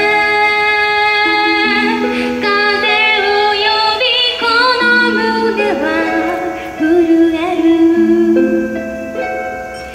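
A woman singing a pop song over instrumental accompaniment, holding long notes with vibrato.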